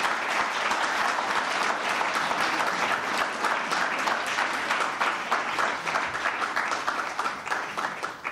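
Audience applauding at the close of a lecture, a dense steady clapping that thins out near the end.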